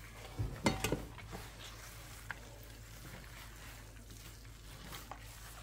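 Hands squishing and kneading a thick, wet batter of flour, crushed walnuts and grated zucchini in a plastic bowl, quiet, with a few soft knocks about half a second to a second in.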